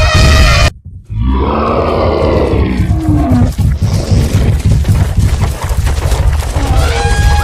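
Elephant stampede sound effect: after a brief break, a long elephant roar falls in pitch. Under it runs a constant low rumble of pounding feet, and more calls come in near the end.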